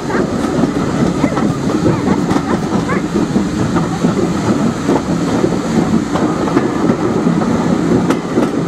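Railway brake van running along the track: a steady rumble of wheels on rail with intermittent clickety-clack.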